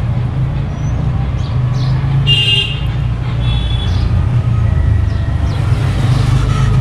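Street traffic: a steady low engine rumble, with a short vehicle horn honk about two and a half seconds in.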